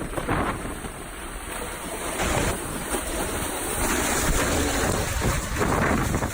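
Tornado-force wind rushing and buffeting the microphone, a dense roar of noise that swells louder about two seconds in.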